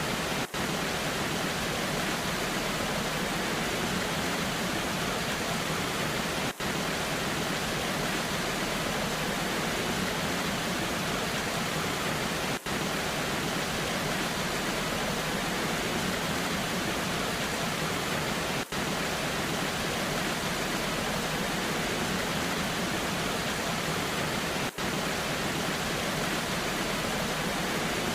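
Waterfall in the rain: a steady rush of falling water, with a very short dropout about every six seconds.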